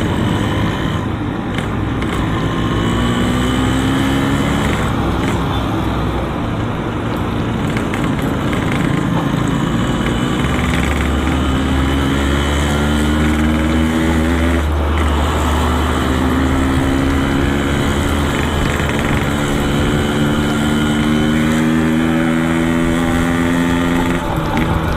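Yamaha RX-King's two-stroke single-cylinder engine through a Boban C33 aftermarket exhaust, on the move. The pitch climbs several times as the bike accelerates through the gears, with the longest climb in the second half.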